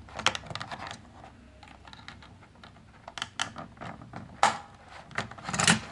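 Irregular small clicks and crinkles of a clear plastic packaging tray and plastic toy figure being handled as rubber bands holding the figure are worked off. A louder crackle comes about four and a half seconds in and again near the end.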